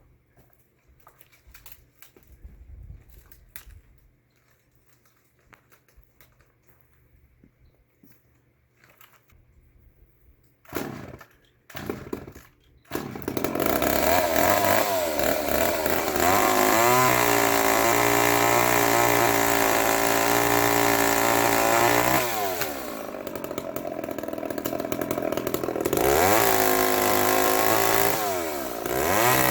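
Gasoline two-stroke chainsaw starting: two brief bursts, then the engine catches about halfway through and runs, revved up and back down several times.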